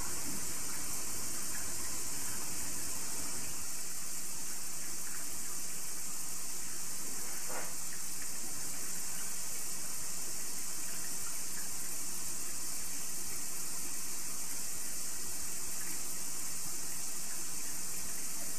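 Kitchen tap running steadily, a constant hiss of water.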